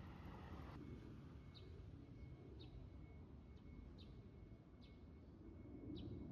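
A small bird chirping faintly, short high chirps roughly once a second, over a low steady rumble.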